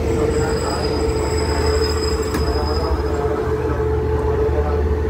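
Diesel railcar train standing at the platform with its engines running: a steady low rumble under a constant mid-pitched whine. A single sharp click comes about two and a half seconds in.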